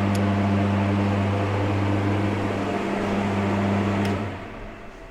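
Electric shop fan running with a steady mains hum, then a click about four seconds in as it is switched off and the hum dies away.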